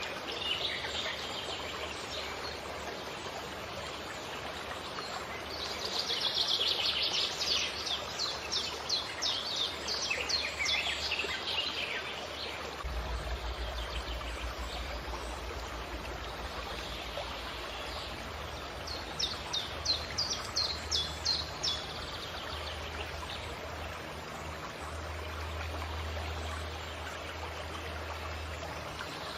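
A stream running steadily, with birds singing over it: two bouts of quick, repeated high notes, one starting about six seconds in and a shorter one about nineteen seconds in.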